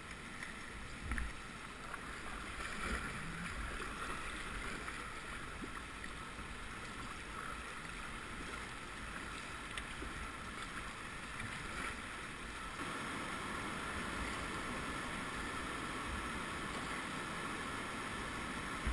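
River water rushing steadily, with a few brief low bumps from wind or knocks on the microphone near the start.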